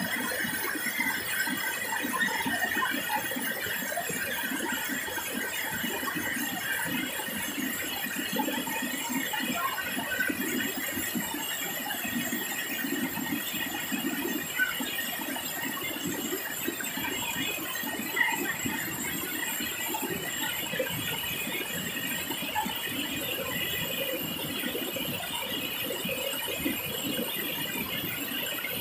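Rushing water of a river cascading over rocky ledges, a steady noisy wash, with a steady high-pitched whine held over it.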